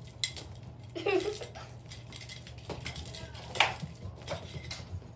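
A few scattered light knocks and clinks, like household objects being bumped, over a low steady hum; the sharpest comes about three and a half seconds in.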